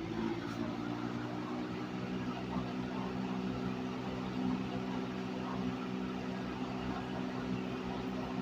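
1974 Kmart K-223 20-inch box fan with its McMillan motor and a four-wing blade running steadily on high speed: a constant motor hum under a rush of moving air.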